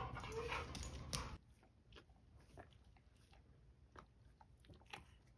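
A chocolate Labrador gnawing on a chew: faint, irregular crunches and clicks of teeth. In the first second or so, before the chewing, there is a louder moment with one short vocal sound.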